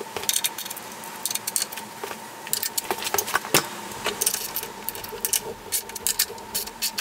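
Irregular light metallic clicks and clinks of steel nuts and a tool being worked on the threaded adjustment bolts of a power hammer's ram guide as they are hand-tightened.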